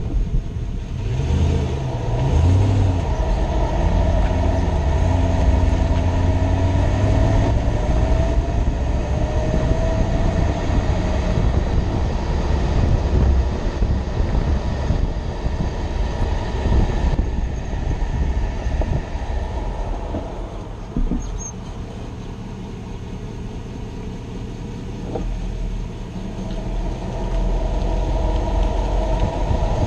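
2006 Toyota Tundra pickup on the move: a steady engine and road rumble with some shifting whine, dropping quieter for a few seconds past the middle.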